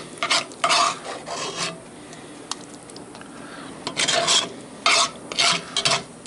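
Metal serving spoon scraping and scooping thick chicken pot pie filling out of a cast iron Dutch oven. A few short scrapes, a pause of about two seconds, then several more scrapes.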